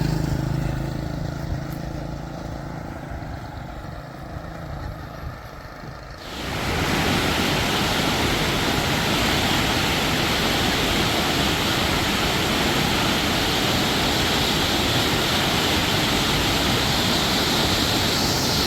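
A vehicle engine fades away over the first few seconds, then about six seconds in a loud, steady rush of water from a small waterfall sets in suddenly and carries on, water flowing with great force.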